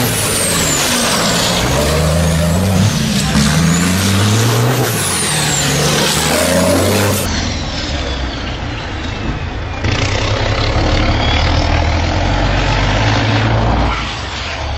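Race truck engines revving hard in repeated rising and falling pulls, with a high whistle rising and falling over the engine note and a noisy wash. The sound changes abruptly a few times as the shot cuts.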